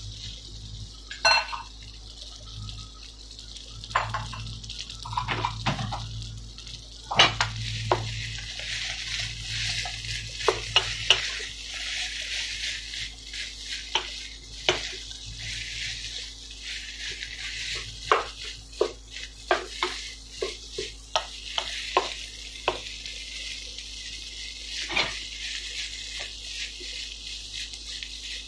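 Kimchi fried rice sizzling in a nonstick frying pan while a spatula stirs and turns it, knocking and scraping against the pan many times.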